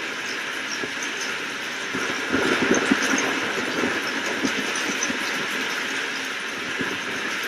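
Steady rain with a rolling rumble of thunder that swells about two seconds in and slowly dies away.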